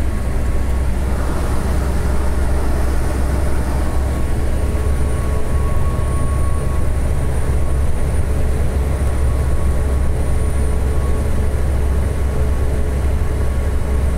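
Steady low rumble of a truck's engine and road noise inside the cab while cruising, with a faint steady whine over it.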